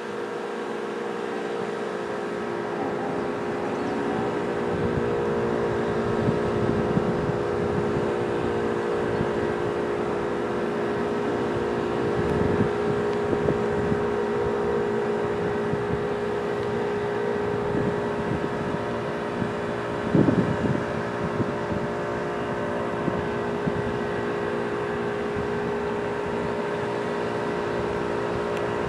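ACA P-10 rotating outdoor warning siren sounding two steady tones together, held at an even pitch. Wind gusts rumble on the microphone, with a brief thump about two-thirds of the way through.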